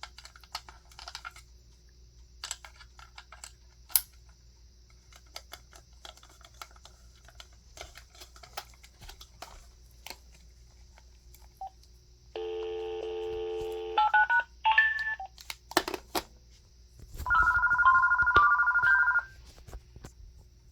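Small clicks and taps of a phone line being plugged in and buttons handled, then an AT&T E6012B 5.8 GHz cordless phone's electronic ringer sounding: a steady chord of tones about twelve seconds in, a few short beeps, then a loud warbling ring of two alternating tones near the end.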